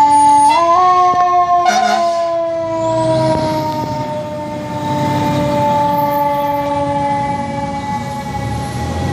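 Fire engine siren sounding on a code 3 emergency run, a steady tone that slowly falls in pitch as the truck pulls away. A brief loud blast comes about two seconds in.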